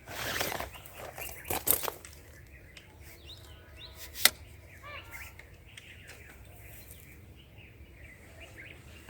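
Rustling and handling noise as camera gear is taken out, with a sharp click about four seconds in. Faint bird chirps sound in the background.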